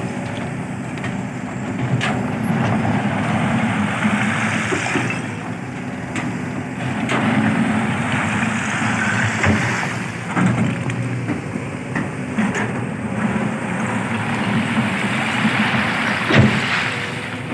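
Kobelco hydraulic excavator's diesel engine running, rising and falling under load as it digs crushed stone and swings it into a dump truck. Now and then there are sharp knocks of stone striking the bucket and the steel truck bed, the loudest near the end.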